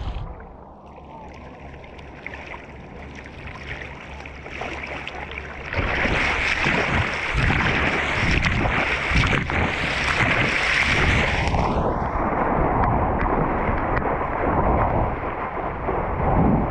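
Ocean water and wind rushing past a helmet-mounted GoPro while surfing. It is dull and quieter at first, swells into a loud, bright rush about six seconds in, and eases again after about six seconds.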